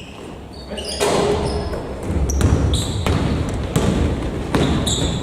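Basketball bouncing on an indoor court at irregular intervals, starting about a second in, with short high squeaks between the bounces in an echoing sports hall.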